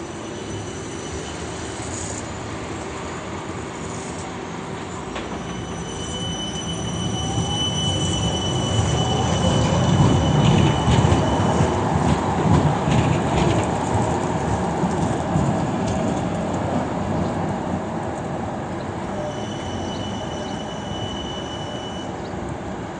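Siemens Avanto tram-train moving off and passing, its running noise building to a peak and then fading away. Its wheels squeal in a thin high whine twice: a long stretch in the middle and a shorter one near the end.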